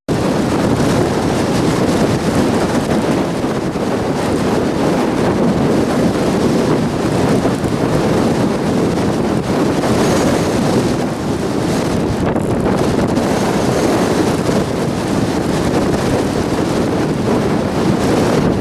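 Strong blizzard wind buffeting the microphone: a loud, steady rushing roar that gusts slightly but never lets up.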